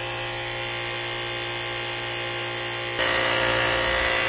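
High-pressure Cat plunger pump of a misting and fogging machine running with a steady motor hum, over the hiss of the spraying mist. About three seconds in it gets suddenly louder and brighter as it is heard up close.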